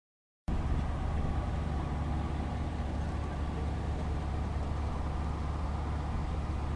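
Steady low drone of running machinery. It starts about half a second in, after a brief gap of silence, and holds even and unchanging.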